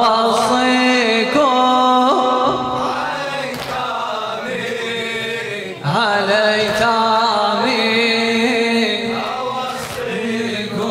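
A man chanting a Shia latmiya lament through a microphone, in long melismatic phrases of wavering held notes with no clear words.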